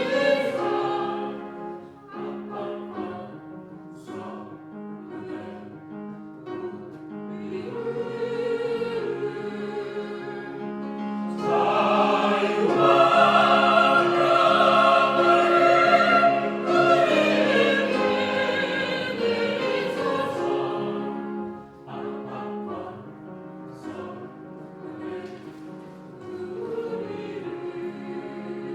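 Church choir singing a sacred anthem in sustained, many-voiced lines. It swells to its loudest and fullest about halfway through, then drops back to a softer passage.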